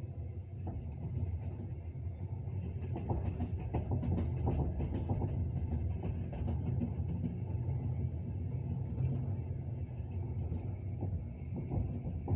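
Train wheels running on the rails: a steady low rumble with scattered clicks and knocks of wheel clatter.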